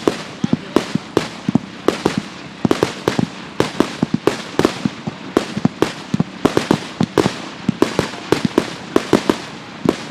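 Consumer fireworks going off in quick succession: a steady run of sharp bangs and cracks, several a second and irregularly spaced, over a continuous hiss.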